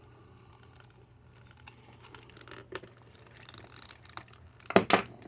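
Hard plastic parts of a Masters of the Universe Origins Stridor horse figure being handled as its helmet is swapped: faint scattered clicks and rubbing, then two sharp plastic clicks close together near the end as a piece snaps or knocks into place.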